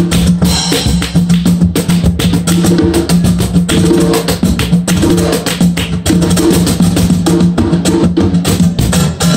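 Live acoustic music: an acoustic guitar played under a fast, steady rhythm of hand clapping and sharp percussive hits.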